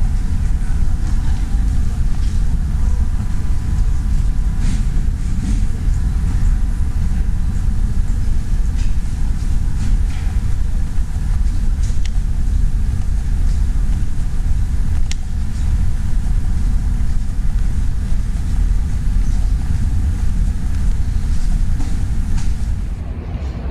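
Steady low rumble of ambient noise in a large, near-empty airport terminal hall, with a few faint clicks and a faint steady hum; it eases off near the end.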